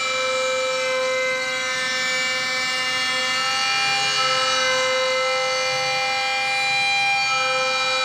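A dense drone of many steady tones held together as one unbroken chord, starting abruptly just before and sustained throughout, with only slight swells in loudness: the sound score accompanying a butoh dance performance.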